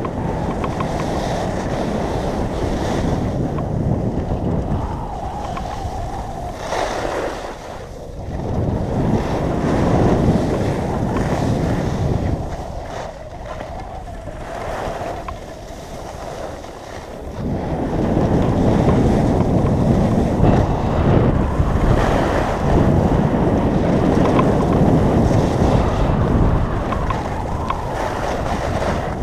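Wind rushing and buffeting the microphone of a skier's action camera during a downhill run, possibly mixed with skis sliding on snow. It swells and fades with the skier's speed, drops for several seconds around the middle, then comes back louder near the end.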